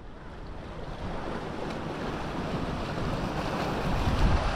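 Wind buffeting the microphone over the steady wash of the sea, gradually growing louder.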